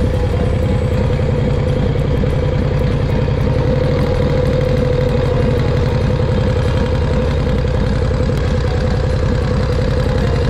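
Harley-Davidson Panhead V-twin engine running steadily as the motorcycle is ridden at an even pace, heard from the rider's seat.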